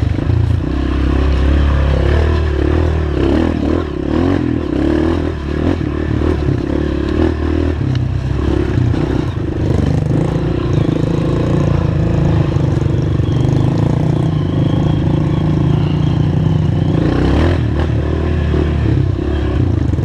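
Honda CRF230 dirt bike's single-cylinder four-stroke engine running at low revs, the throttle rising and falling as the bike picks its way over rocks and roots. Clattering and scraping from the bike over the rough ground runs through it.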